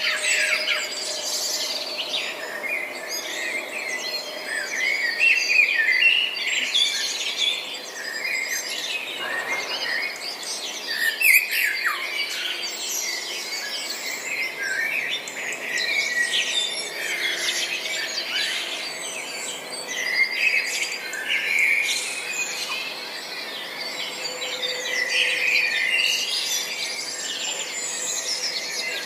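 Many small birds chirping and singing at once, a dense chorus of overlapping quick chirps, trills and short whistles that never lets up.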